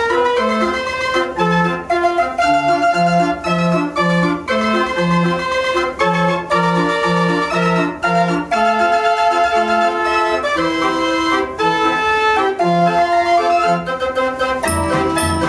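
Fairground organ with wooden pipes playing a tune, a melody over bass notes. Near the end a steady beat of low thumps and high ticks joins in.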